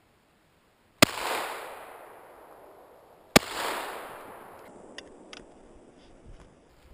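Two shotgun shots about two and a half seconds apart, each followed by a long echo that fades away: shots fired at a brown hare driven by a hunting hound. A few faint clicks follow near the end.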